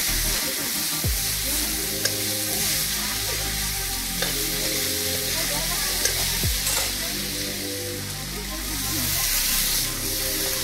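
Vegetables frying with a steady sizzle in a black iron kadai as a spatula stirs them, scraping and knocking against the pan now and then.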